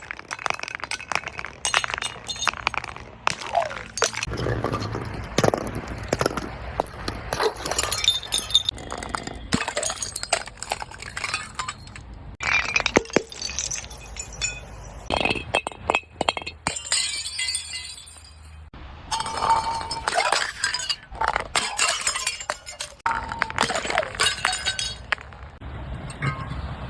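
Glass being crushed and broken, with many sharp crunches and clinks of glass pieces one after another, some shards ringing briefly.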